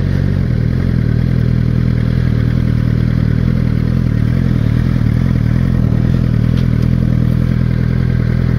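Suzuki GSX-R600 inline-four engine running steadily while riding, dropping a little in pitch about half a second in, over steady wind and road noise.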